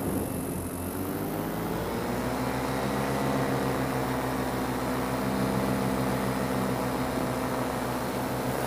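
Single-cylinder two-stroke paramotor engine running steadily in flight, its pitch rising slightly about two seconds in and then holding.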